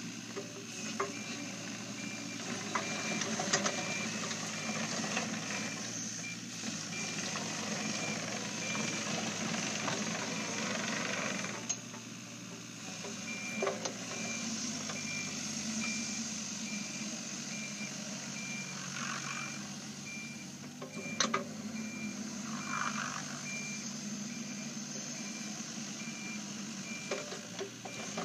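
Takeuchi TB125 mini excavator's diesel engine running under hydraulic work, with a high, evenly pulsed warning beep that pauses for a couple of seconds about twelve seconds in and then resumes. A few sharp metallic clanks cut through, the loudest about two-thirds of the way in.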